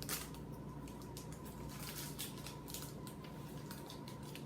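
Faint, quick clicks and crinkles of a plastic snack wrapper being handled, scattered unevenly.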